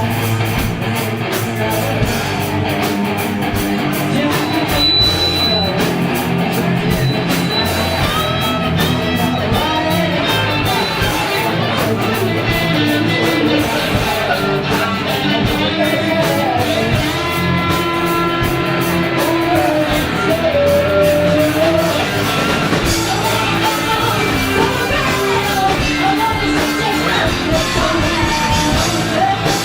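Live band playing a funky rock song, with guitar prominent over the full band.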